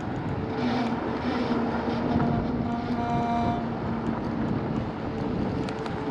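Dualtron X2 electric scooter's dual hub motors whining steadily at low cruising speed, over a rumble of knobby tyres on a rough sandy dirt path.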